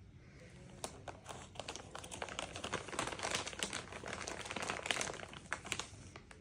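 Plastic packaging crinkling and rustling in quick, irregular crackles, starting about a second in, growing busier and stopping near the end.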